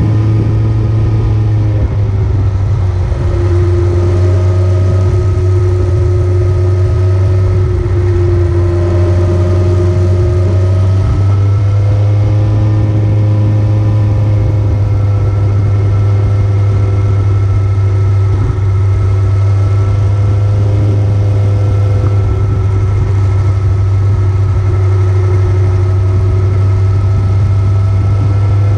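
Engine of a moving vehicle running continuously, with a strong steady low hum and a pitch that drifts slowly up and down.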